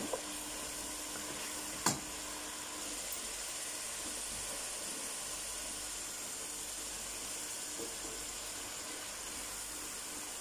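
Onion-and-spice tadka sizzling steadily in hot oil in a pan, with one sharp tap about two seconds in.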